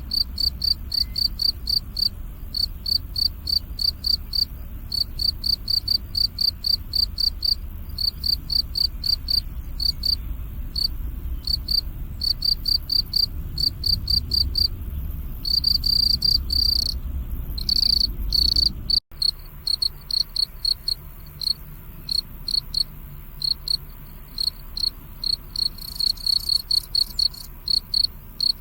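Crickets chirping in short, regular pulses, about three a second, running together into an unbroken trill for a second or two a little past halfway.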